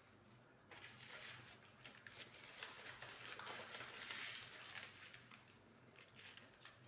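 Faint rustling with scattered light clicks from dry seeds and herbs being spooned and handled.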